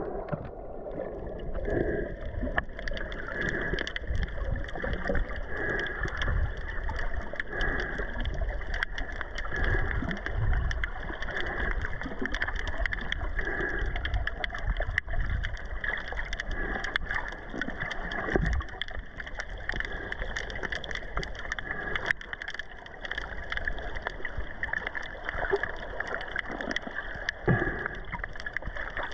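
Underwater sound picked up by a camera in its housing: a steady wash of water noise with a dense, irregular crackle of clicks and uneven low rumbles of moving water.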